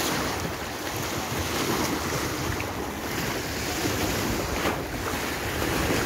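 Strong wind buffeting the microphone over waves washing against a rocky shore: a steady rushing noise.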